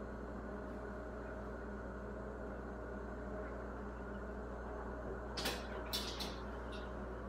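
Hunter Douglas Pirouette PowerView motorized shade running, a faint steady hum, with a few sharp clicks about five and a half to seven seconds in.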